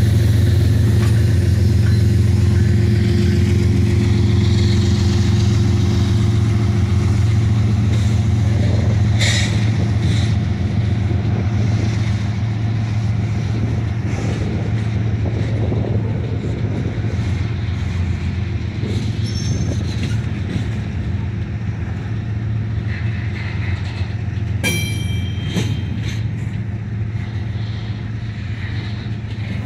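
CN diesel locomotives hauling a double-stack intermodal container train past at close range, picking up speed. A heavy steady engine drone runs under the rumble of the container well cars. Brief high-pitched squeals come about nine seconds in and again near the end.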